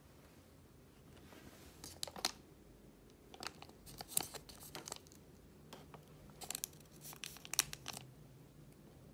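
Folded origami paper crinkling and crackling as it is picked up and handled, in three short bouts of crisp crackles.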